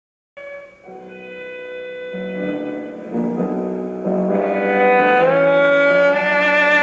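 Classical string music with violin and cello, starting out of dead silence about half a second in and building steadily louder.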